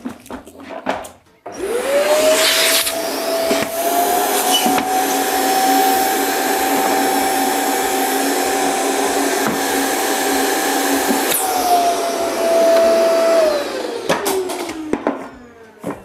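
Electric vacuum cleaner switched on about a second and a half in, its motor whining up to speed and running steadily while it draws air out of a trash can to pull a bin bag into place. It is then switched off and winds down with a falling whine near the end. A few knocks come before it starts and after it stops.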